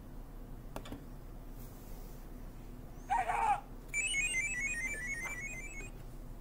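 A short, high-pitched call about three seconds in, followed by about two seconds of a rapid electronic warbling trill that jumps quickly between two pitches, like a ringtone.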